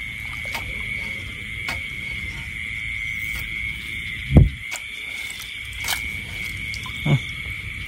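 Steady high-pitched chorus of night insects. A single low thump from the water comes about four and a half seconds in, and a smaller one near the end.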